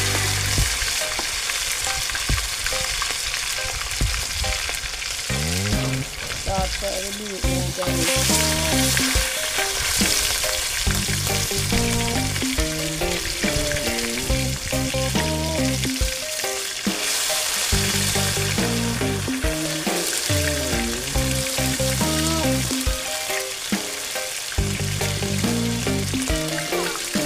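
Meat frying in a pot, with a steady sizzle and the occasional stir, over background music.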